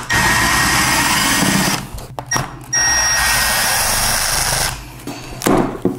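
Cordless impact driver with a long Phillips bit running in two bursts of about two seconds each, with a brief blip between them, backing out stubborn screws from the end cap of a metal-cased e-bike battery.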